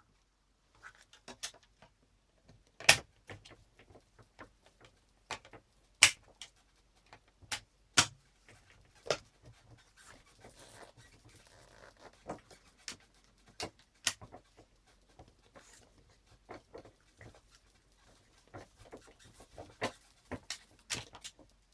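Irregular sharp clicks and taps of a plastic cross-country ski binding being handled and fitted onto its mounting plate on the ski, the loudest about three and six seconds in.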